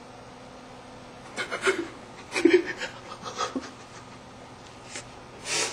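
A man's stifled laughter: a few short, breathy chuckles in separate bursts, with a sharp breath out near the end.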